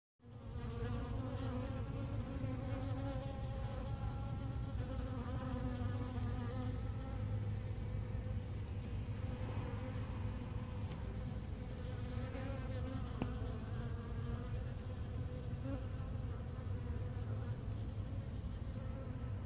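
Honey bees buzzing steadily around extracted honey frames, where they are feeding on the leftover honey; a continuous, slightly wavering hum of several bees' wingbeats.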